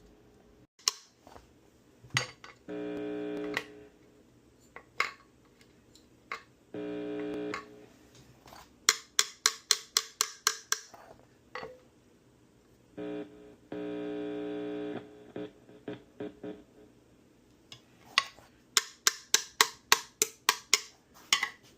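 Electric guitar plugged into an amplifier during a wiring test: three steady buzzes of about a second each, and two runs of sharp, rapid taps at about five a second coming through the amp.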